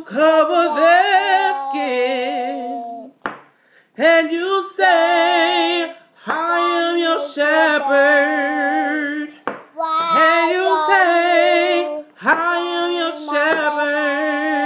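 One voice singing a cappella in long held notes with a wide vibrato. The phrases are broken by short breaths, about every two to three seconds.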